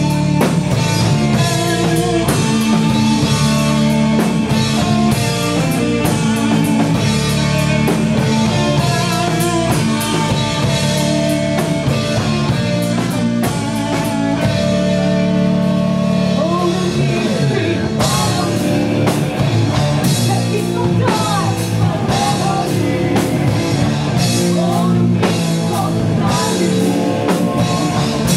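Doom metal band playing live: slow, heavy distorted electric guitars, bass guitar and drum kit, with a singer's voice over the band in the second half.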